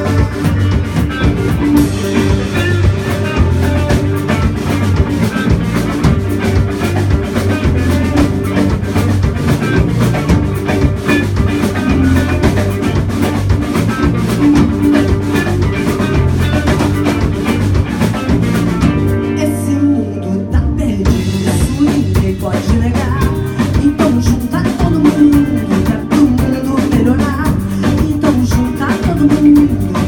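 Live rock band playing: electric guitar, bass guitar and drum kit with singing. About two-thirds of the way through the sound briefly thins out, losing its crisp top, then the full band comes back in.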